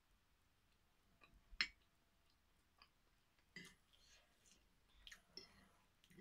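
A person eating: a few faint clicks and clinks of a metal spoon and fork against a plate, with quiet chewing. The sharpest click comes about one and a half seconds in.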